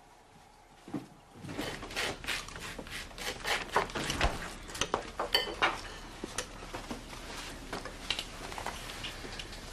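Plates and cutlery clinking and clattering at a kitchen table during a meal, a run of quick, irregular clinks that starts about a second and a half in.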